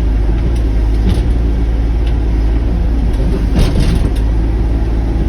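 Sany mini excavator's diesel engine running steadily while working a cedar tree, with a couple of short cracks or creaks about a second in and past the middle as the machine strains against the tree.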